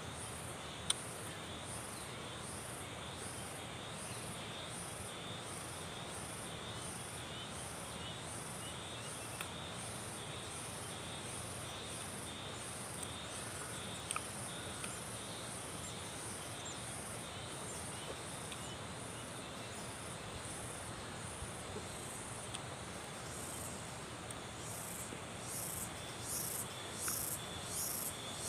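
Insects chirping in an even, high-pitched pulsing rhythm of about two pulses a second, growing louder near the end. A single sharp click comes about a second in.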